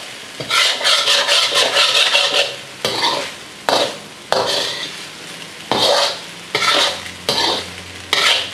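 Metal spoon scraping and tossing rice around a hot wok in repeated strokes, about one every half second to second, with the sizzle of stir-frying underneath.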